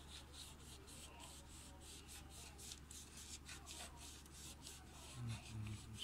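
A cloth scrubbing back and forth over the contact tracks of a gear selector switch's circuit board, faint rubbing strokes at about three a second, cleaning off corrosion. A steady low hum runs underneath, and a few soft low knocks come near the end.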